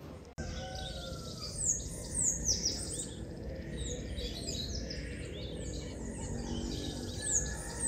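Many birds chirping, short high calls that slide downward, overlapping and repeating throughout, over a low steady background rumble.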